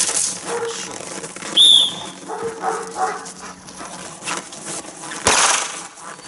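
A dog whimpering and making short calls while it pulls and plays with its handler, with one sharp high yelp about one and a half seconds in. A loud sudden sound comes about five seconds in.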